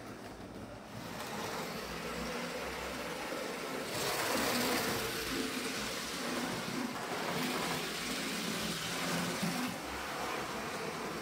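Hornby 'Britannia' OO gauge model steam locomotive running on the track, its small electric motor and gears whirring steadily as the wheels run on the rails. It gets louder about four seconds in and eases back near the end. It runs freely now that a bent motor casing, which had knocked the gears out of line and made them lock up, has been straightened.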